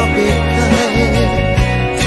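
Bengali-language song playing: steady bass and beat under a wavering melody line, with no words sung here.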